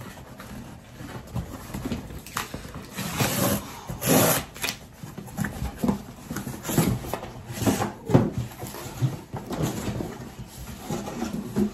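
Cardboard shipping box being handled: a string of irregular scrapes and rubs of cardboard, the loudest about four seconds in.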